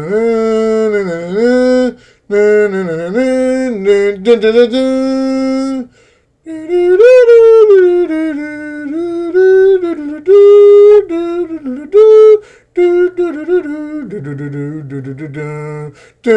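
A man humming a wordless tune a cappella, in phrases of held notes with short breaks between them.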